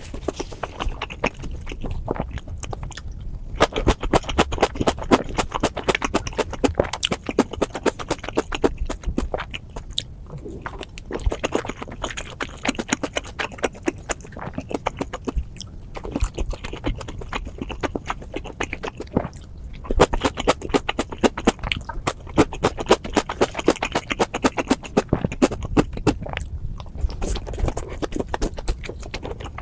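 Close-miked wet chewing and mouth smacking from someone eating steamed momos: rapid, irregular clicks and squelches throughout.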